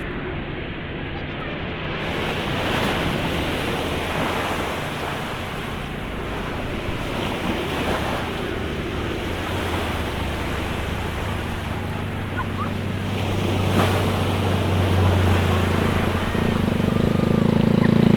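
Ocean surf washing ashore, with wind buffeting the microphone. A low steady hum builds up and gets louder near the end.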